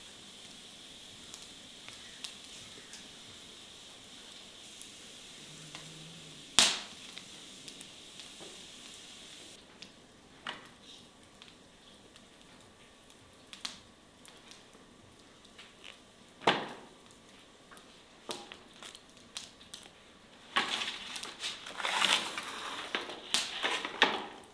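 Hands working raw chicken drumsticks and twine, with a few sharp clicks. Near the end, a stretch of louder rustling and scraping as the large metal tray of tied drumsticks is handled on the stone counter.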